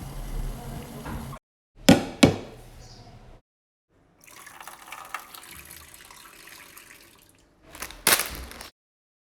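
Short kitchen sound clips cut together with dead-silent gaps between them: a steady noise at first, then two sharp knocks about two seconds in, then about three seconds of tap water running into a sink, and a short loud noise near the end.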